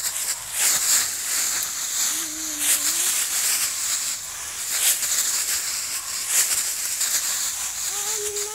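Dry fallen leaves crunching and rustling irregularly under a dog's paws and nose as it walks and sniffs through them. Two short pitched sounds of unclear source come through as well, a low one about two seconds in and a longer one near the end.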